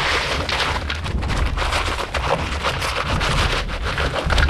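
French fries being poured and spread onto a cookie tray: a busy, irregular rustle with many small rapid clicks as they land.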